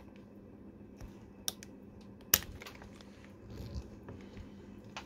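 A few sharp metallic clicks and faint handling noise from a Weihrauch air rifle's action as it is decocked, the loudest click a little over two seconds in.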